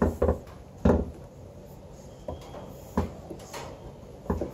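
A few separate clacks and knocks from a Mitsubishi Xpander's bonnet latch and panel as the bonnet is unlatched and lifted, the loudest knock at the very end.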